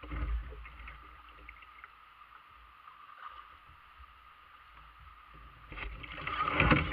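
Shallow creek water rippling over a rocky riffle around a kayak. Near the end a louder surge of splashing and knocking as the kayak lurches to one side.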